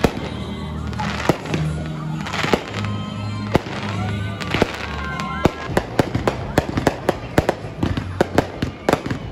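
Fireworks going off in a run of sharp bangs and crackles that come thicker from about halfway through, with music playing underneath.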